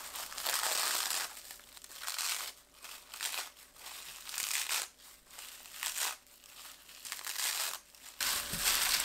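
Crisp sheets of toasted gim (roasted laver seaweed) being crushed and crumbled by gloved hands, crackling in irregular bursts with short pauses.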